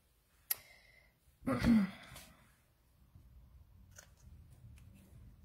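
A short breathy sigh about a second and a half in, then a single scissors snip about four seconds in as the ends of a satin ruched ribbon are trimmed, with a few light handling clicks.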